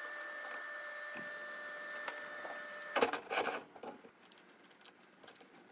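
Hot-air blower running steadily with a faint whine, then cutting off about three seconds in. This is followed by a few clicks and rustles as the circuit board is handled in its holder.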